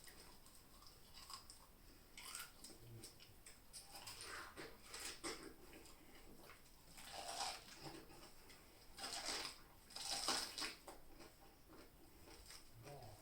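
Faint, irregular chewing and biting of pineapple, with louder bites about seven, nine and ten seconds in.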